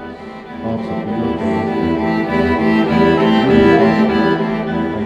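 Music played on bowed strings, sustained notes that swell louder toward the middle.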